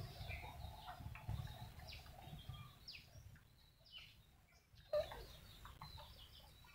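Chickens clucking faintly, with several short, high, falling peeps through the middle and a brief louder sound about five seconds in.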